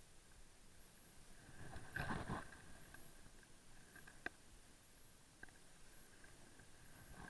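Faint, muffled sound of sliding down a groomed snow slope on an action camera, with a brief louder scraping rush about two seconds in and a single sharp knock a couple of seconds later, over a thin steady high whine.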